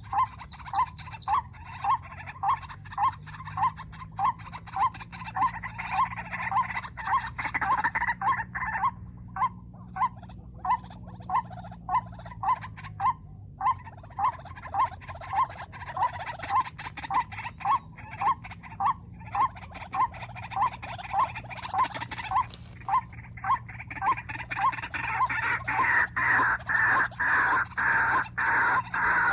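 White-breasted waterhen calling: a monotonous, evenly repeated croaking note, about one and a half a second, growing louder and harsher in the last few seconds.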